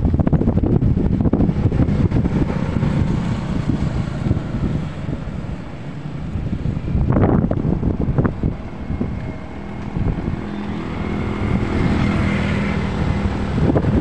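Wind buffeting the microphone of a moving motorbike, with the bike's engine and road noise running underneath. The rush is loud and uneven.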